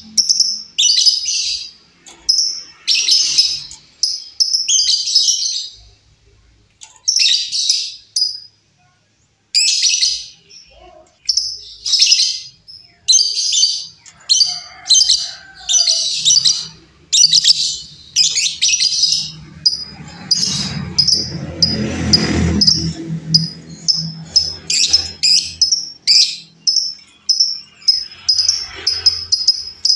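Female lovebird calling in shrill, high bursts, one after another with short gaps, then breaking into a quick run of short chirps near the end. A soft rustling noise sits underneath about two-thirds of the way through.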